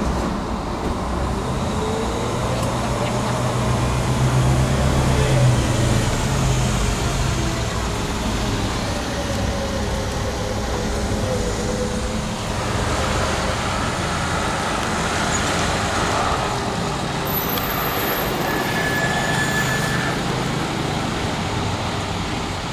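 A fire ladder truck's diesel engine running steadily. Its low hum is strongest in the first several seconds and then eases, with road traffic around it.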